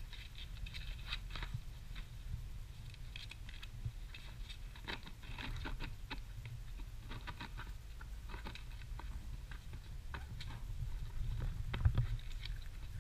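Bulldog puppies nosing and mouthing at a terracotta plant saucer: a stream of small irregular clicks, scrapes and chewing noises, with a louder knock about twelve seconds in.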